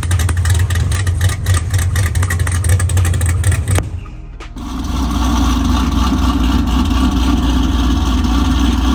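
Drag-prepped fourth-generation Chevrolet Camaro engine idling with a loud, choppy, uneven beat. About four seconds in it cuts off and a second car, a Pontiac G8, takes over with its engine running at a steadier drone.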